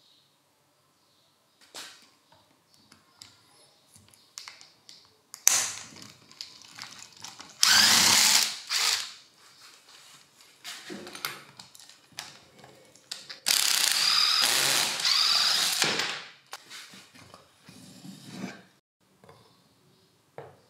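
Small electric screwdriver running in two bursts, the first about three seconds long and the second about two and a half, as screws are backed out of a rotary hammer drill's housing. Light clicks and knocks of the tool parts being handled come in between.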